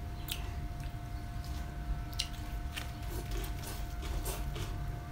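Close-up mouth sounds of chewing and biting fresh raw vegetables and herbs, with scattered short, sharp crunches and clicks over a steady low hum.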